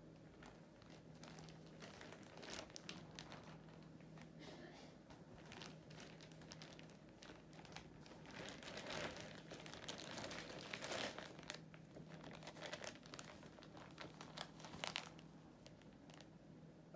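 Plastic shopping bag crinkling softly as a kitten shifts and turns around inside it, in irregular bursts that are busiest around the middle, with a couple of sharper crackles near the end.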